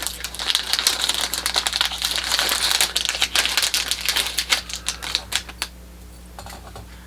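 Small packaging being handled and opened by hand: a rapid run of light clicks and crinkles that stops about six seconds in.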